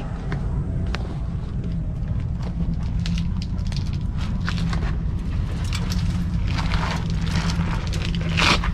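Wind buffeting the microphone in a steady low rumble, with scattered crackles and a louder plastic-bag rustle near the end.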